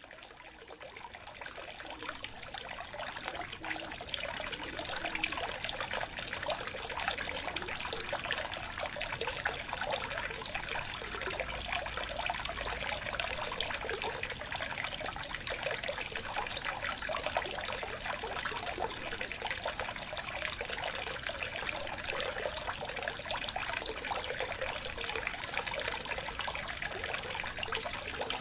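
Water trickling steadily, fading in over the first two seconds.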